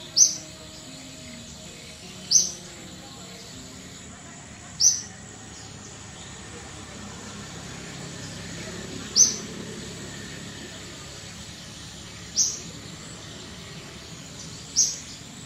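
A bird gives a short, high chirp six times, two to four seconds apart, over a steady outdoor background hum.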